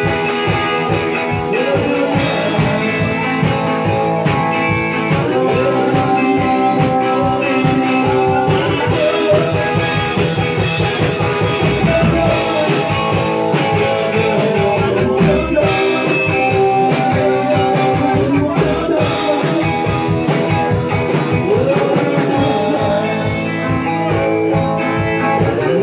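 Rock band playing live: guitar over a drum kit keeping a steady beat.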